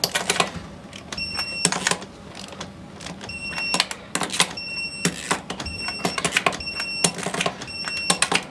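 Torque wrench ratcheting in quick bursts of clicks as the wheel's lug nuts are tightened to 100 ft-lb, with short high-pitched beeps repeating about once a second.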